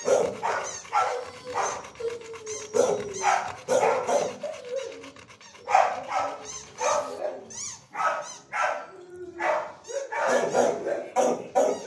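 Dogs barking repeatedly in a shelter kennel block, several barks a second with brief pauses between runs.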